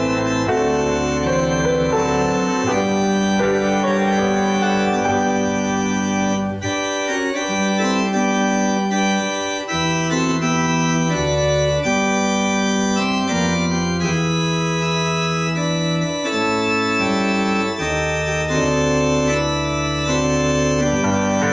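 Organ playing held chords over a slow-moving bass line, the harmony changing about every second.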